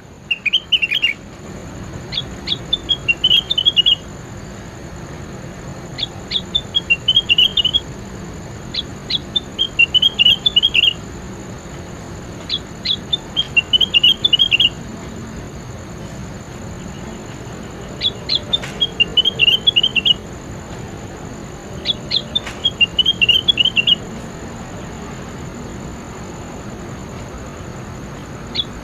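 A songbird singing the same short phrase over and over, about every four seconds: a few sharp, high notes, then a quick warbling trill.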